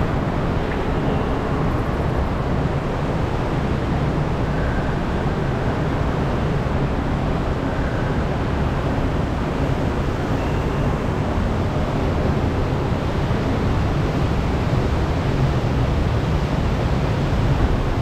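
Steady rush and low rumble of flowing water in the channel of an Intamin river rapids ride, heard from a round raft floating along it.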